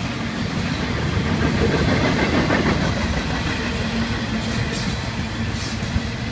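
Florida East Coast Railway intermodal freight cars, carrying double-stacked containers and trailers, rolling past: a steady rumble of steel wheels on the rails, loudest about two seconds in.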